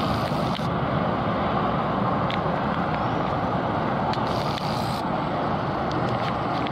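Steady outdoor traffic noise with a tram approaching along the track, and a few faint clicks.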